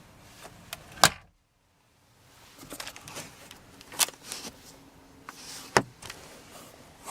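Car glove box latch and lid being handled: a sharp click about a second in, then two more clicks at about four and six seconds, with faint rustling between.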